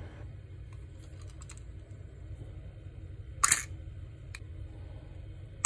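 Light plastic clicks from handling a toy RC car watch, with one louder plastic snap about three and a half seconds in as the hinged clear dome lid over the car is flipped open. A low steady hum runs underneath.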